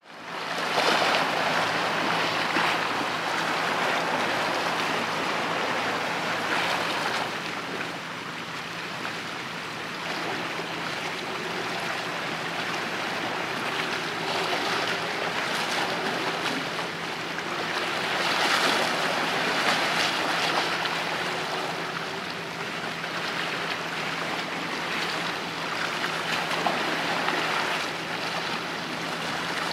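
Water washing and lapping against the shore, a steady rushing that swells every few seconds, with a faint steady low hum underneath.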